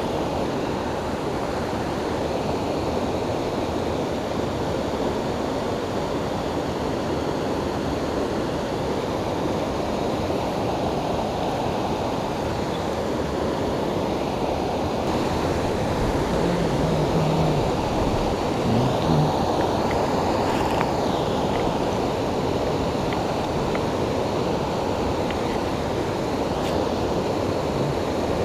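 Fast, muddy stream water rushing over a rocky riffle: a steady, even rush of running water.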